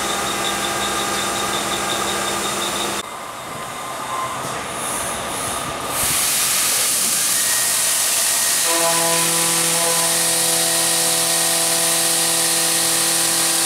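CNC machining center milling a part with a face-mill cutter under flood coolant: a steady mechanical hum and whine over a spray hiss. About three seconds in the sound drops and thins, about six seconds in a steady hiss comes back, and a new set of steady whine tones starts near nine seconds as the spindle runs on.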